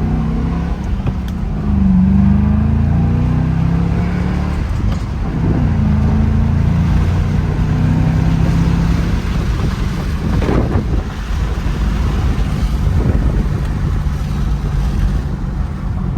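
2006 Ford Mustang GT's 4.6-litre V8 on its stock exhaust, heard from inside the car with the windows down as it is driven hard under acceleration. The engine note rises and falls with throttle and shifts over road and wind noise. The exhaust itself is super quiet, with a nice tone.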